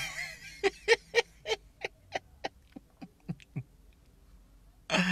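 A man laughing in a run of short 'ha' bursts, about three a second, trailing off fainter. Near the end his voice comes in loudly as he starts to speak.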